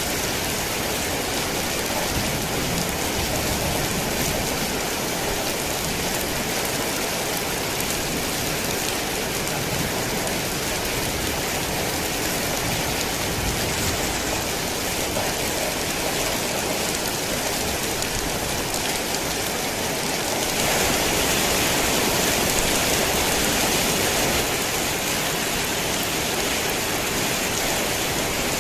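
Heavy rain falling steadily, a dense even hiss of drops on surfaces, swelling a little louder about three-quarters of the way through.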